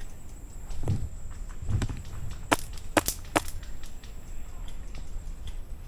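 Three sharp airsoft gun shots about half a second apart, after a couple of dull knocks of movement and gear.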